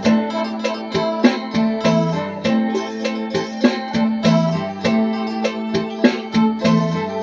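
Phin, the Isan plucked lute, playing a quick run of plucked melody notes over a steady open-string drone.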